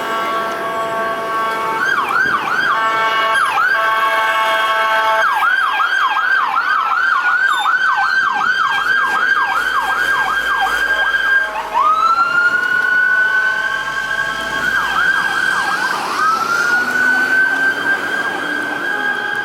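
Fire apparatus sirens switching between a slow wail and a fast yelp, with air horn blasts in the first few seconds. The yelp runs from about five seconds in, a wail rises near the middle, a short yelp follows, and another wail climbs near the end.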